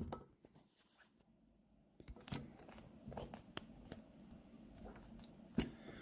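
Near silence for about two seconds, then faint scattered handling clicks and rustles at close range, with one sharper click near the end.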